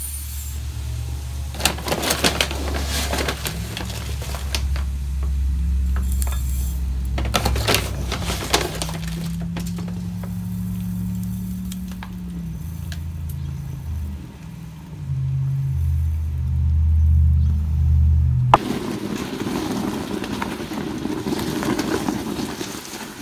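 Silica cat-litter crystals poured from a jar into a glass Pyrex measuring cup, clattering and rattling against the glass, with a low droning hum underneath. Near the end this gives way to a steady fizzing hiss from a stainless-steel pot as the litter reacts with a hot lye solution.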